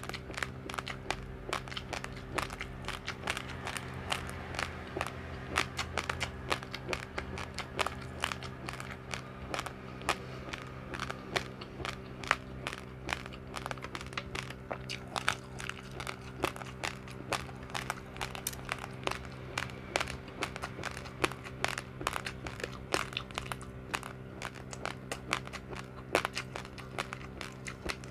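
Dry uncooked rice grains crunched between the teeth: quick, irregular crackling clicks, over a steady low hum.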